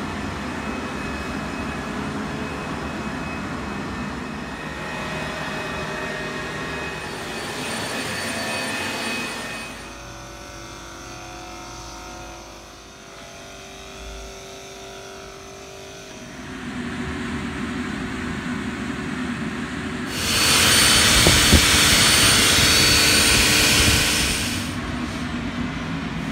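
Disinfectant sprayers running: a steady motor whir with the hiss of the spray, changing in sound at several cuts, quieter through the middle and with a much louder, brighter hiss for about four seconds near the end.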